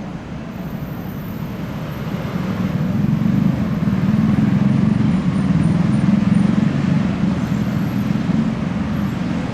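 Street traffic: a motor vehicle's low rumble grows louder over the first few seconds, holds for several seconds, then eases slightly near the end.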